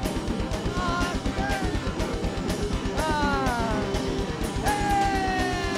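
Live rock band playing: guitars and drum kit with a rapid, even drum-and-bass pulse, and long notes sliding downward from about halfway in.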